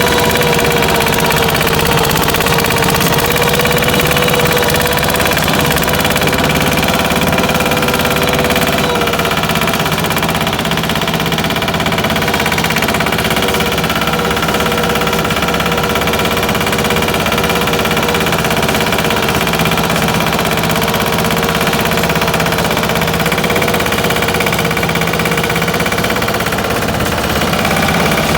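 Patpat two-wheel tractor engine running steadily at an even speed.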